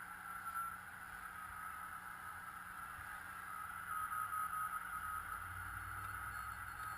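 Frog Sounds QRP CW transceiver receiving on the 40 m band at 7.023 MHz: steady band hiss through a narrow audio filter, with a faint Morse code tone coming in and out about four seconds in.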